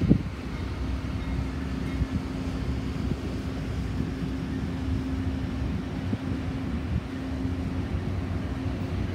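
Amtrak passenger cars rolling past on the track: a steady low rumble of wheels on rail with a steady hum underneath. A short thump right at the start.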